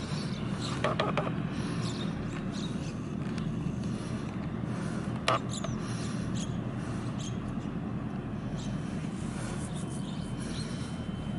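Steady low rumble of the container ship's and tugboats' engines, with a few short high chirps and one sharp click about five seconds in.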